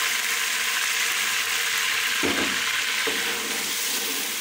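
Ginger-garlic paste frying in hot oil with browned onions in an aluminium pot: a steady sizzle. A single short knock about two seconds in, from the ladle against the pot.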